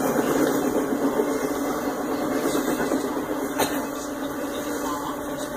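Double-stack intermodal freight train's container cars rolling past: a steady rumble of steel wheels on rail, with one sharp click about three and a half seconds in.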